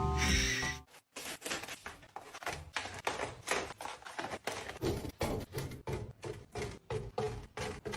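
Music that cuts off about a second in, then a quick run of clicks and taps, several a second, as containers and packages are handled and set down during a restock, some with a short ring.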